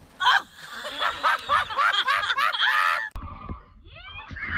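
Loud, breathless laughter from onlookers, in rapid repeated bursts, as someone tumbles off an inflatable water trampoline. It cuts off suddenly about three seconds in, giving way to a low rumble and a voice.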